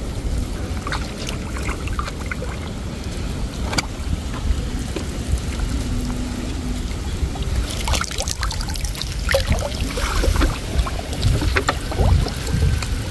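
Water sloshing and splashing around a person wading chest-deep and groping by hand in a hole in the bank, with a steady low rumble underneath; the splashes come thicker in the last few seconds.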